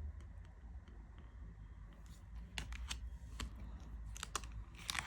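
Tarot cards being handled during a flip-through: a few short clicks and brief sliding rustles of card stock, bunched in the second half, over a faint low hum.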